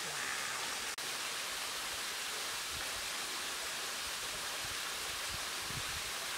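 Steady rushing of flowing water, an even hiss that briefly drops out about a second in.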